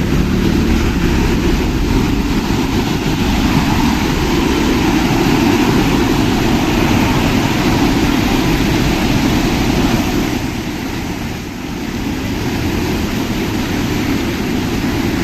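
Steady engine and road noise from a moving vehicle, easing off briefly about ten seconds in and then picking up again.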